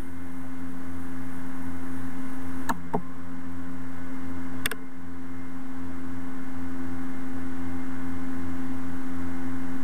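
Steady electrical hum with hiss from the recording setup, broken by a few short clicks: two about three seconds in and a sharper one near five seconds.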